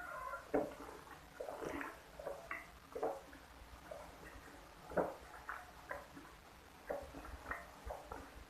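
Close-miked mouth sounds of eating: irregular wet smacks and clicks of chewing, a few louder ones about half a second, three seconds and five seconds in.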